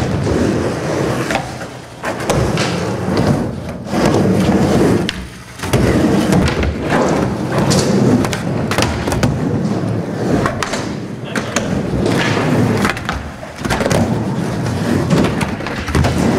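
Skateboard wheels rolling over wooden ramps, with repeated sharp clacks and knocks of the board hitting the ramp surface and coping. The rolling dips briefly twice.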